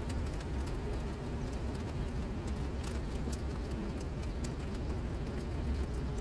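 Rain falling into standing water on paving: a steady wash of sound scattered with many small sharp drop ticks, over a steady low rumble.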